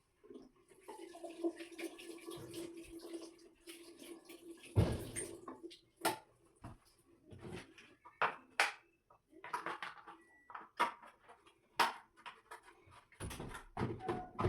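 Water running and splashing for a few seconds while a washing-machine part soaked in vinegar is rinsed and scrubbed, then a heavy knock and a string of short clicks and knocks as the parts are handled.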